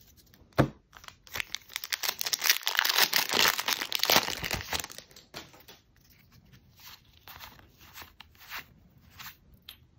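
Foil Pokémon booster pack wrapper being torn open and crinkled, a dense crackling that is loudest in the first half. A sharp tap comes just before it, and light ticks and slides of cards being handled follow it.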